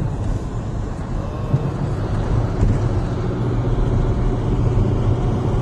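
Steady engine and road rumble of a taxi heard from inside its cabin while it drives along city streets.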